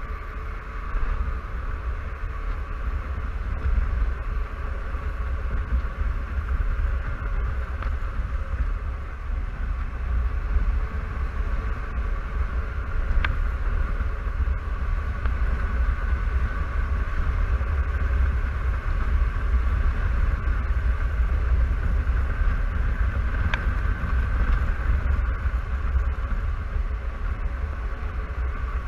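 Honda Silverwing 600 maxi-scooter cruising at a steady road speed: constant wind rumble over the microphone, with the parallel-twin engine and drive running evenly underneath.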